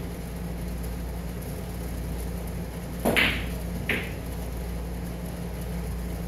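A steady low hum, with two short sudden noises about three seconds in, less than a second apart, the first louder and longer than the second.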